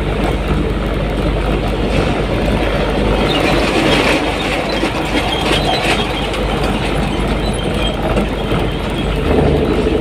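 Steady engine and tyre noise heard inside the cabin of a moving vehicle, with a low hum and a busier, rattly stretch from about three to six seconds in.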